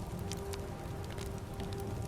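Soft music of long held tones over a rain and crackling-fire ambience, with scattered sharp crackles and a low steady rumble.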